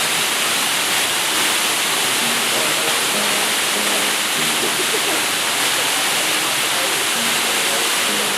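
Waterfall rushing: a steady, loud wash of falling water that does not let up, with faint voices under it now and then.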